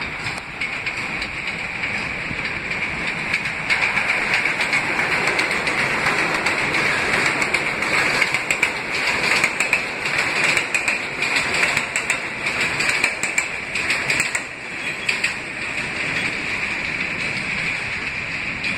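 Eight-car R160A subway train running past on an elevated track. Its steel wheels rumble on the rails, and a rapid run of clicks over the rail joints is loudest in the middle as the cars pass close by. The sound eases off near the end as the train moves away.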